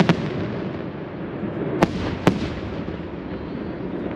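Aerial firework shells bursting during a display: a loud blast cuts off right at the start, then two sharp bangs about half a second apart near the middle, over a steady background rumble.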